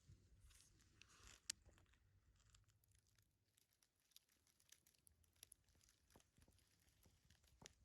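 Near silence with faint, scattered clicks and crackles, one sharper click about a second and a half in.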